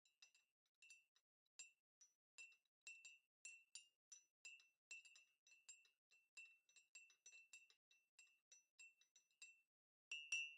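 A spoon stirring in a glass cup, clinking against its side two or three times a second with a short glassy ring each time, then two louder clinks near the end.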